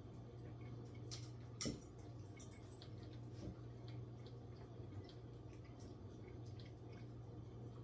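Quiet eating sounds: scattered faint clicks and taps of a meal being eaten, one a little louder about a second and a half in, over a steady low hum.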